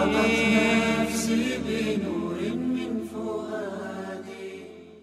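Arabic devotional nasheed, a sung vocal line with drawn-out, wavering notes over a low steady drone, fading out toward the end.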